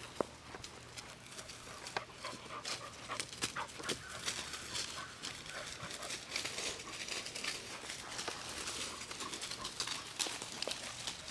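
Two puppies play-fighting and chasing over grass strewn with dry leaves: scuffling and rustling with many short crackles, mixed with small dog sounds.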